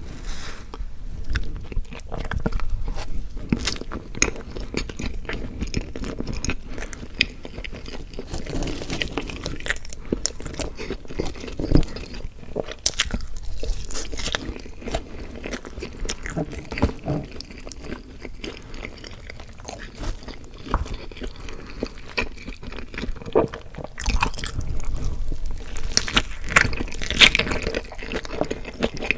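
A person chewing and biting food close to the microphone, with mouth sounds and many short, sharp clicks throughout, loudest for a few seconds near the end.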